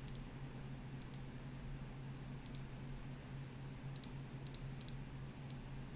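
Computer mouse clicking every second or so, several clicks in quick pairs, faint over a steady low hum.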